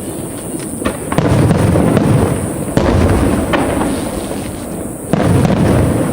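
Aerial fireworks shells bursting: three deep booms, about a second in, near three seconds and just past five seconds, each dying away slowly, with sharp cracks and pops between them.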